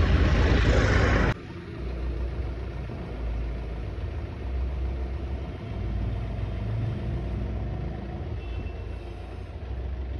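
Car engine running with a steady low rumble. A louder rushing noise cuts off suddenly about a second in.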